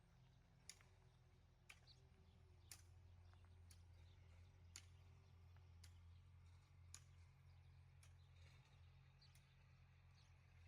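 Near silence with faint, sharp clicks about once a second over a low hum.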